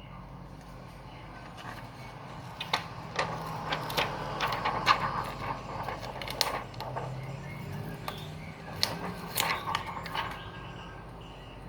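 Packaging being handled and opened: an irregular run of sharp clicks and rustles that starts a couple of seconds in and stops shortly before the end, over a steady low hum.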